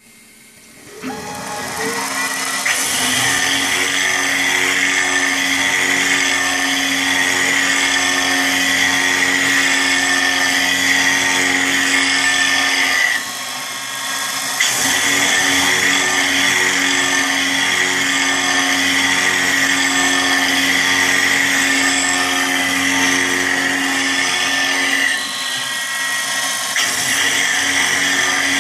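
CNC mill spindle running with an end mill cutting circular passes into a clear plastic plate: a steady whine with cutting noise. It builds up in the first couple of seconds and drops off briefly twice, about halfway through and again near the end.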